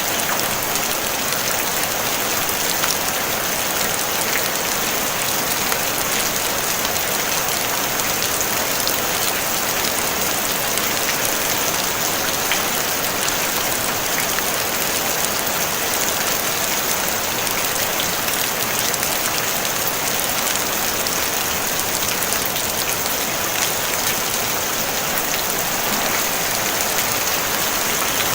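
Steady, even rain on a tin roof: a constant hiss of many drops with faint individual taps.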